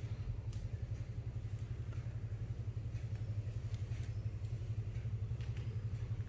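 A motor running steadily: a low hum that pulses quickly and evenly, with a few faint clicks over it.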